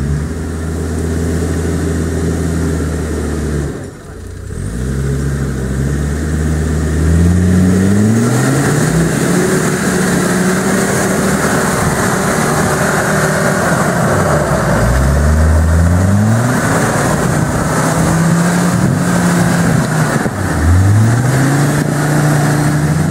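Off-road 4x4's engine revving up and down, its pitch climbing sharply several times, with a steady rushing noise underneath from about a third of the way in.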